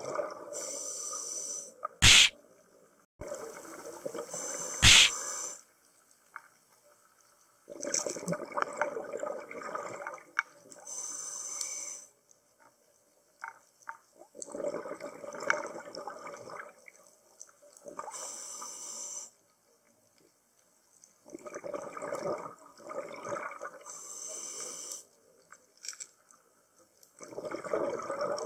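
A scuba diver breathing through a regulator underwater: short hissing inhalations alternating with longer bubbling exhalations, several breaths in a slow rhythm. Two sharp clicks, the loudest sounds, come about two and five seconds in.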